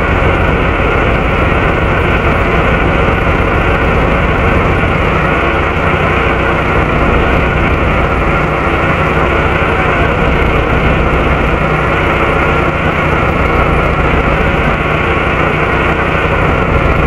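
Volvo B7RLE bus heard from the rear of the saloon: the engine cooling fan gives a loud, steady rush with a steady whine running through it, and the diesel engine runs beneath.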